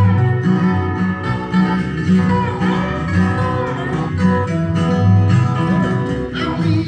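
Acoustic country band playing an instrumental passage, led by a resonator guitar played lap-style with a slide bar, its notes gliding up and down in pitch over acoustic guitar backing.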